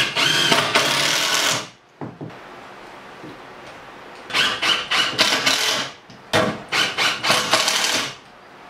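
Cordless impact driver driving screws into a wooden stud-wall frame in bursts: one long run of rapid hammering at the start, then a pause of about two seconds, then several shorter bursts.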